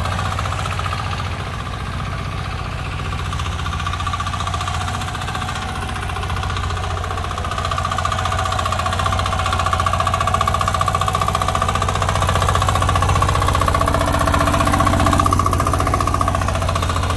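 Small power tiller (mini tractor) engine running steadily, getting a little louder about halfway through.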